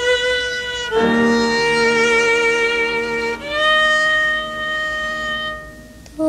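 Violin playing long held notes in an instrumental passage of a pre-1975 Vietnamese nhạc vàng song, with a lower sustained note beneath; the melody changes note about a second in and again past the middle, then fades away near the end.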